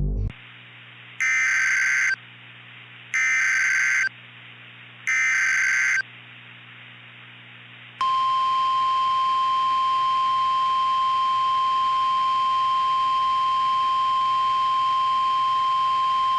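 Emergency Alert System header: three one-second bursts of screeching digital data tones about a second apart, over a radio hiss. Then, about 8 seconds in, a steady single-pitched alert tone starts and holds.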